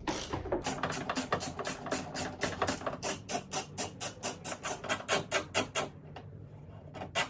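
Socket ratchet clicking rapidly, about five or six clicks a second, as a 10 mm bolt holding the outside door handle is backed out inside the door. The clicking stops about six seconds in, with a last short burst near the end.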